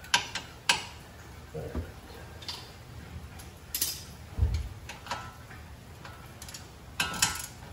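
Hand tools clinking against steel at a car's front steering knuckle: irregular sharp metallic clicks and clinks from sockets and a wrench being handled and fitted to the suspension fasteners, with one dull knock about halfway through.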